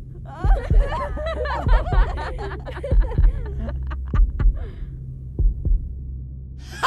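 A heartbeat sound effect beats in slow double thumps, a lub-dub about every second and a quarter, over a steady low hum. Girls' laughter and chatter run over it for the first half and then fade out, leaving the heartbeat alone.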